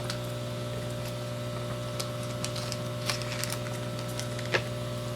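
Steady hum of a hot air rework station blowing while a new FPC connector is set on the board, with a few light clicks of metal tweezers, the sharpest near the end.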